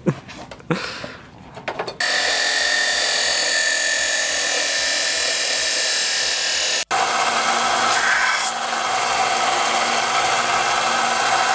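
Abrasive chop saw cutting through metal tubing, a loud steady grinding with a high tone, starting abruptly about two seconds in. After a sharp break about seven seconds in, a bench belt sander grinds metal with a lower, rougher steady noise.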